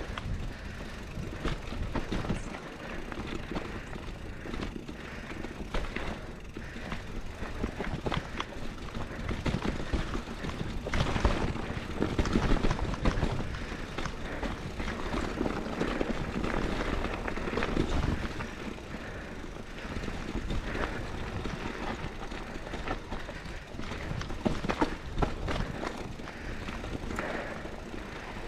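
Scott Spark 950 full-suspension mountain bike rolling down a rocky dirt trail: its knobby Maxxis Dissector tyres running over dirt and loose rock, with the bike rattling and knocking over the bumps. Loudest about eleven to thirteen seconds in.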